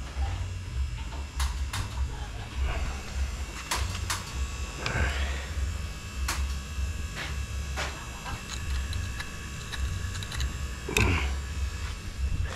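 Close-up handling noises from hands working a graft: scattered small clicks and two brief rasps, about five seconds in and near the end. A low, choppy rumble runs underneath.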